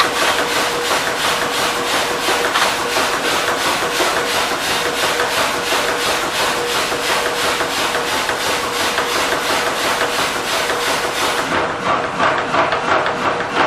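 Rapid, evenly spaced hammering, about five strokes a second, on a breaker chisel tip under repair, with a steady hum beneath. The strokes turn duller near the end.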